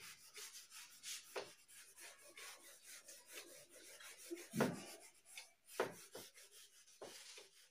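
Whiteboard eraser rubbed back and forth across a whiteboard, wiping off marker writing, in quick repeated strokes; a few strokes are louder, the loudest about four and a half seconds in.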